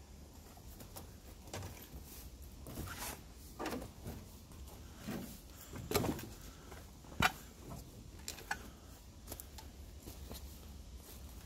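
Footsteps crunching slowly and irregularly through dry fallen leaves and twigs, with one sharp snap about seven seconds in.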